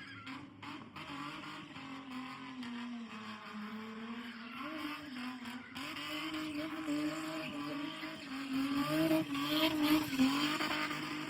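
Car engine at high revs, its pitch wavering, dipping midway and then climbing and getting louder near the end.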